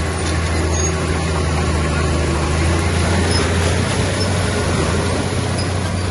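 Heavy diesel engine of earthmoving machinery running steadily with a constant low hum.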